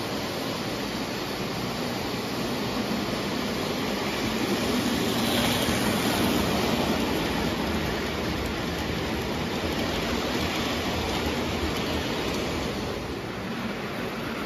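Lionel O gauge Southern Crescent Limited train running past on three-rail tubular track: a steady rolling rumble of metal wheels on the tinplate rails, louder from about four to seven seconds in as the cars pass closest.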